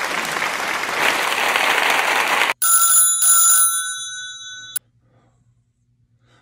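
Sitcom-style audience applause that cuts off sharply after about two and a half seconds. It is followed by a telephone ringing, which fades and stops abruptly about five seconds in.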